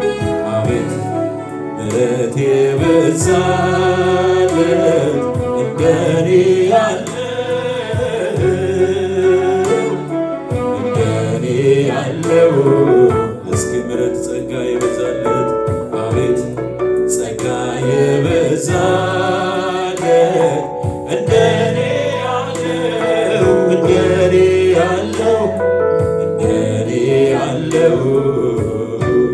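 A man singing a gospel worship song into a handheld microphone, over musical accompaniment.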